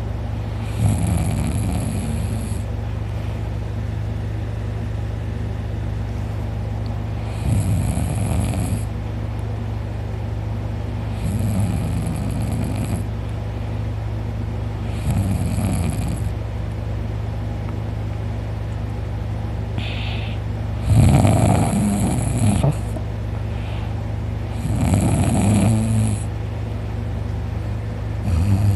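A man snoring loudly in deep sleep: six rough snores of one to two seconds each, coming every three to five seconds with one longer pause in the middle. A steady low hum runs underneath.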